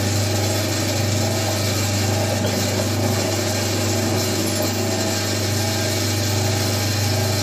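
Electric drill running steadily, its bit boring a pin hole through a wooden parang handle.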